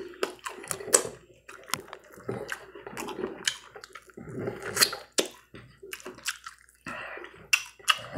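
Wet mouth sounds of eating fried chicken picked off the bone by hand: lip smacks, sucking and chewing, heard as a scattered run of short wet clicks and smacks.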